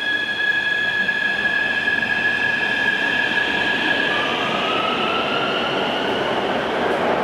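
Beijing Metro Line 11 train running through the station behind the platform screen doors: a steady high electric whine that drops to a lower, slightly rising tone about four seconds in, over a rushing rail noise that grows louder towards the end.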